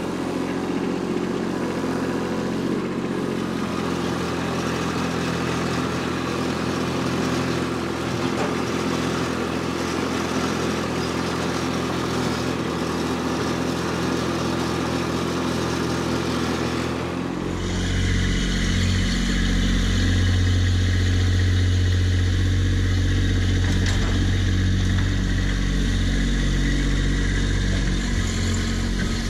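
Kubota B2601 compact tractor's three-cylinder diesel engine running steadily under load as the front-end loader bucket digs at tree roots. About two-thirds of the way through the engine sound becomes louder and deeper.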